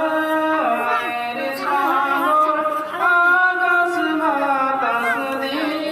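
A young man singing solo and unaccompanied into a microphone: a melodic line of long held notes with sliding, curling ornaments, sung in phrases.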